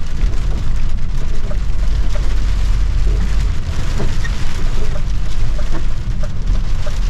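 Heavy hail pelting the truck, many small ticks over a dense hiss, with the lorry's engine and road rumble running low underneath.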